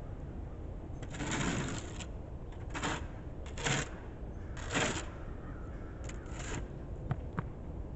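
Snow shovel scraping along a concrete sidewalk in a series of short strokes, about six scrapes with a longer one near the start, and two light clicks near the end, over a steady low rumble.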